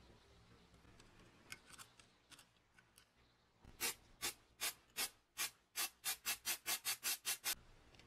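Aerosol spray can sprayed in about fourteen short hissing bursts, slow at first and coming faster toward the end, preceded by a few faint clicks and scrapes of handling.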